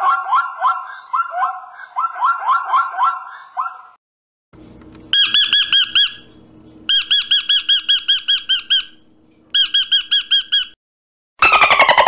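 Zebra barking: a fast run of rising yelps, ending about four seconds in. After a short pause come three runs of rapid, high, repeated squeaking calls from blue-and-yellow macaws. Near the end a dolphin gives a quick chatter of falling whistles.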